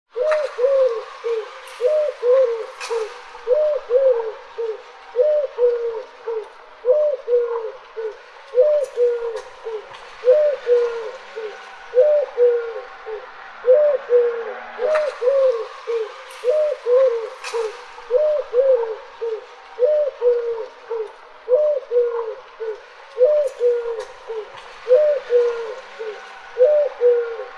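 A dove cooing over and over, a steady run of short coos that rise then fall, a little more than one a second.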